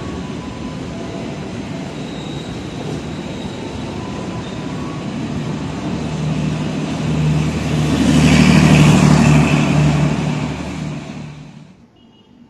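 Passenger train's coaches rolling past on the rails with a steady rumble that swells about six seconds in, when a steady hum joins it as the train's diesel-generator power car goes by; the sound stops abruptly near the end.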